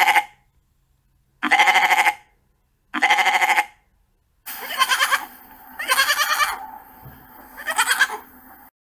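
Goat bleating repeatedly, about six bleats in two runs. The last three bleats come over a steady background hiss and stop abruptly near the end.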